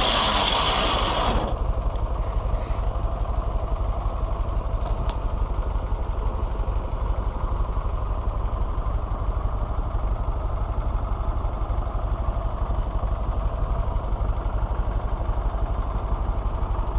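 Large inserted-tooth circular blade of a rack sawmill finishing a cut through a log: a loud, high cutting noise stops abruptly about a second and a half in. After that, the Fordson Power Major tractor's engine runs steadily, driving the saw through its PTO.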